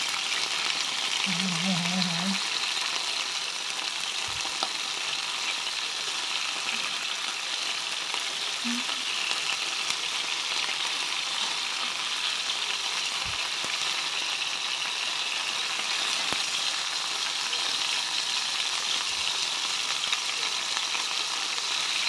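Seafood (squid rings and shrimp) sizzling steadily in hot oil with garlic in a non-stick pan, stirred with a slotted spatula, with a few light clicks of the spatula against the pan.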